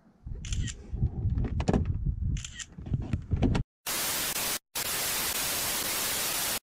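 Low rumbling and knocks with two short hissing bursts, then, about three and a half seconds in, a TV-static transition effect: a steady hiss of white noise, broken once by a brief gap.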